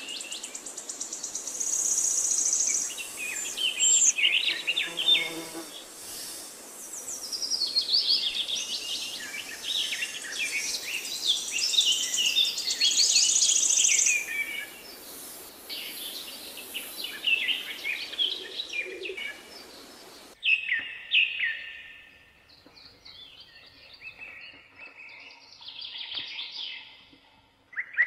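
Several songbirds singing and chirping, with rapid high trills among the calls. About two-thirds of the way through, the sound cuts abruptly to a quieter stretch of birds chirping.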